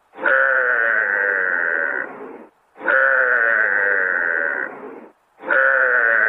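A drawn-out animal call, about two seconds long, repeated three times with short gaps between. The calls are identical, a single recording looped.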